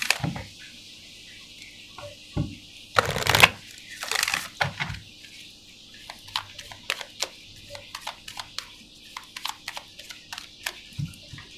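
Oracle card deck being shuffled by hand: a stream of quick card clicks and slaps, loudest in two bursts about three and four seconds in.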